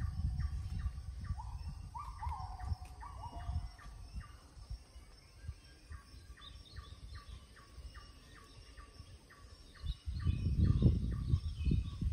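Wild birds calling: a repeated falling call near 1 kHz in the first few seconds, then a fast run of short chirps, about four a second, through the middle. A low rumbling noise sits underneath and grows loud about ten seconds in.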